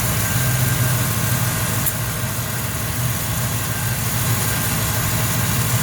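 1996 Chevrolet Caprice engine idling steadily with the air conditioning switched on.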